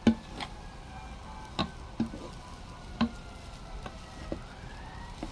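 Wooden spoon stirring fried rice in a pot, knocking sharply against the pot about six times at uneven intervals, over a faint steady sizzle of the rice frying.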